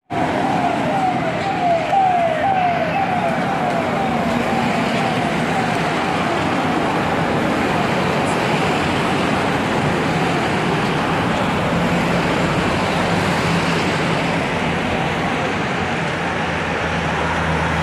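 A motorcade of SUVs passing on a road: a siren cycles quickly, about twice a second, for the first five seconds or so and fades away, then the steady rush of vehicles driving past.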